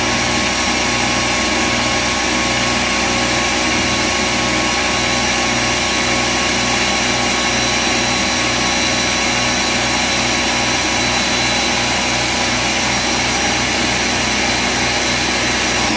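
Ninja Professional 1000-watt countertop blender running at full power, grinding roasted peanuts into smooth peanut butter. The motor and blades make a steady, loud whir.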